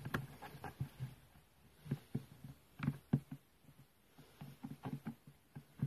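Scattered light clicks and knocks of tools and small parts being handled, a dozen or so irregular taps with short gaps between them.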